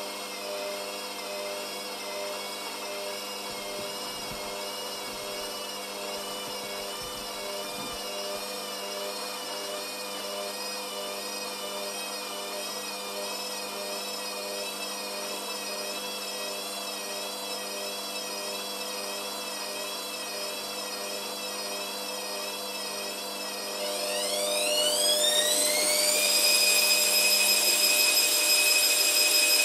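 Hotpoint Aquarius Extra washing machine's motor whining, its pitch wavering about once a second, then near the end rising quickly to a higher, louder steady whine as the drum speeds up into a spin.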